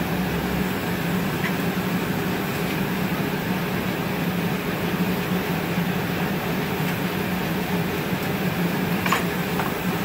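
Steady roar of a glass shop's furnaces and fans, with a deeper hum that stops about half a second in and a couple of light clicks near the end.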